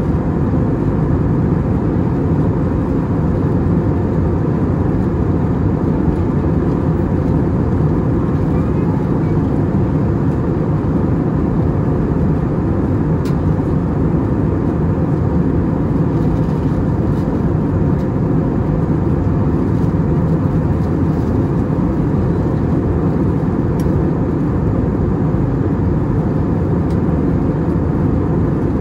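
Steady engine and airflow drone inside the cabin of an Airbus A320neo, strongest in the low range and unchanging throughout.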